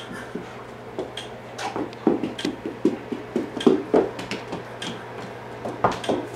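Hooves clopping on a concrete floor: a newborn Friesian filly's irregular steps, which grow louder about two seconds in.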